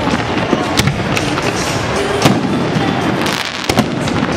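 Aerial firework shells bursting in a rapid, irregular series of sharp bangs and crackles over a continuous din.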